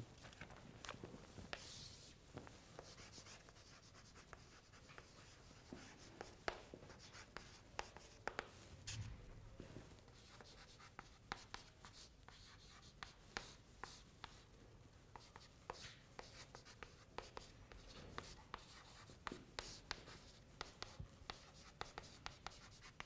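Chalk writing on a blackboard: a faint, irregular run of taps and scrapes as letters and symbols are written.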